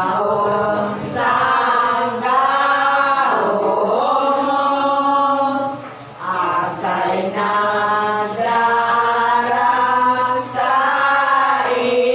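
A group of women singing a gozos, a Filipino devotional hymn, together from song booklets. Long held notes run through with a short break about six seconds in.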